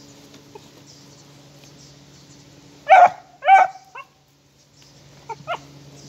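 Beagle puppy giving two loud, short barks about three seconds in, then a couple of quieter yips near the end, while it digs after a rabbit scent under a log.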